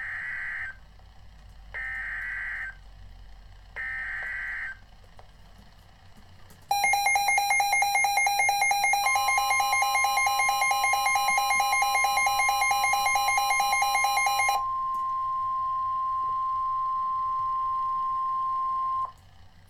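NOAA Weather Radio EAS alert: three short raspy bursts of the SAME digital header data, then a loud, rapidly pulsing receiver alarm starting about seven seconds in. A steady single-pitch 1050 Hz warning alert tone joins it, runs on alone after the pulsing stops about fifteen seconds in, and cuts off shortly before the end.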